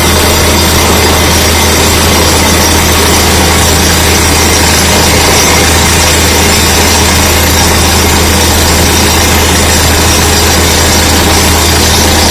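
Truck-mounted down-the-hole (DTH) drilling rig running while drilling: a loud, steady mechanical din with a deep hum underneath and compressed air blowing rock dust out of the borehole.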